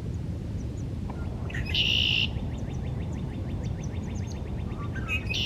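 Male red-winged blackbird singing: a loud, buzzy burst about two seconds in that runs into a quick rattling trill, and the next song beginning near the end, over a steady low background rumble.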